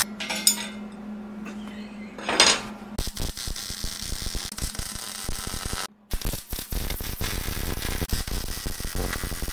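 Welding arc tacking steel bracket pieces together: a short burst of crackle, then a longer run of steady arc crackle that breaks off briefly about six seconds in and starts again, over a steady electrical hum.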